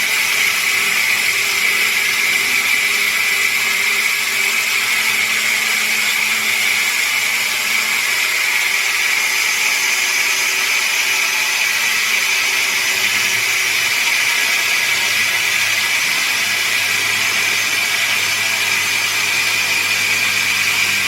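20V cordless brushless angle grinder running steadily at a constant level, a dense hissing whine, for the whole stretch.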